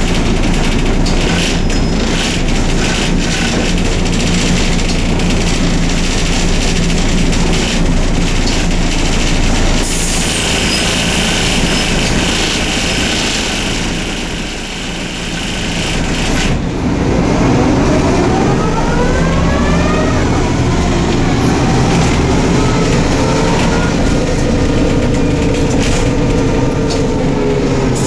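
Neoplan/ELBO N4007 city bus heard from inside the cabin while under way: steady engine and road rumble. A little past halfway it briefly quietens, then the engine and driveline whine rises in pitch as the bus accelerates, drops once at a gear change and climbs again before levelling off.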